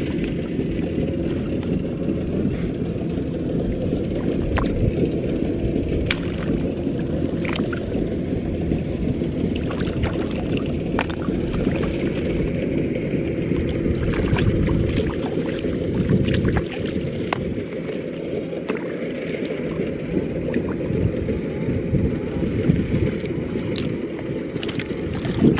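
Steady low wind rumble on the microphone, with scattered light splashes and clicks of hands working in shallow water.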